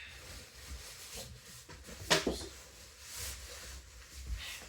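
Quiet rustling and handling sounds, with one sharp knock about two seconds in.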